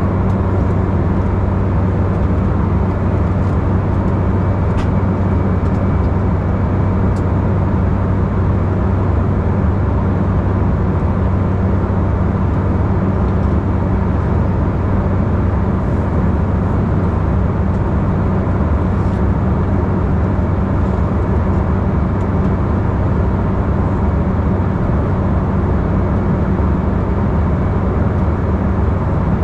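Steady cabin drone of an Embraer E195 airliner in flight: its twin turbofan engines and the air rushing past the fuselage make an even rushing noise over a low, constant hum.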